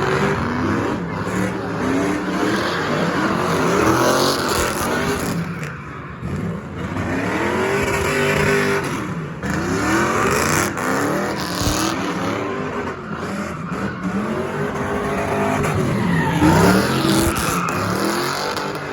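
A car engine revving up and down again and again, every second or two, with tyres squealing as the car spins in circles.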